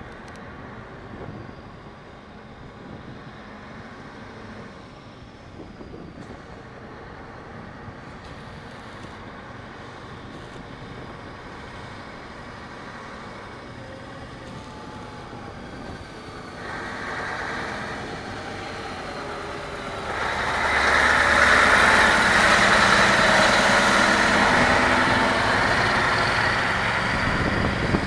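Scania 143H 500 truck's V8 diesel on an open, straight-through exhaust, pulling away with its trailer: fairly quiet at first, louder about two-thirds of the way through, then loud and steady as it accelerates past.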